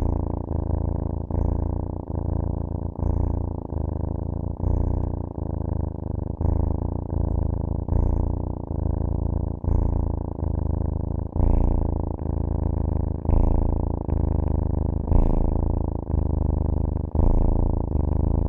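Domestic cat purring steadily. The low purr rises and falls in an even rhythm about every two seconds.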